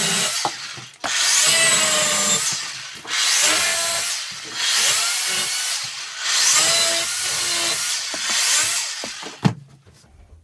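Makita electric chainsaw cutting the corners off a dry Manitoba maple bowl blank in about six short cuts of one to two seconds each. The motor's pitch dips as the chain bites into the wood and rises again between cuts. The sawing stops shortly before the end.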